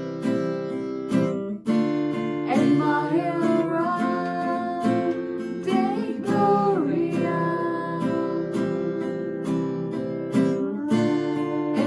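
Acoustic guitar strummed in a steady rhythm, with voices singing a melody over it from a couple of seconds in.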